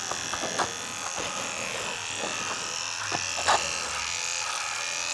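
Electric hair clippers running steadily while cutting hair, with a few short clicks; the loudest come about half a second in and three and a half seconds in.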